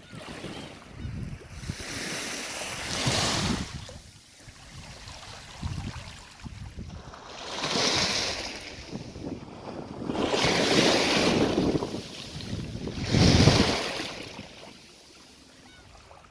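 Sea waves breaking on the shore, each one surging up and washing back down, four times.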